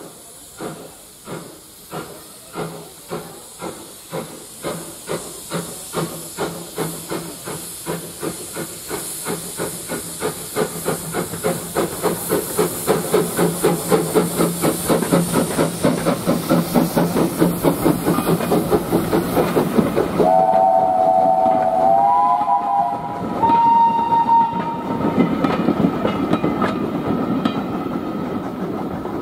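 LBSC A1 Terrier tank engine No. 72 Fenchurch pulling away with a train: slow, sharp exhaust beats quicken steadily over a hiss of steam, which cuts off suddenly about two-thirds of the way in. A steam whistle then sounds twice, a short wavering blast and a longer steady one, and the train rolls on past.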